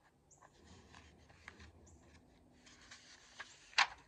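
Paper rustling as the pages of an old hardcover picture book are handled and turned, with a sharp snap of the page near the end.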